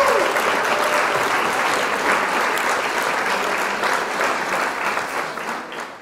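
Applause, a dense patter of many hands clapping, fading out near the end.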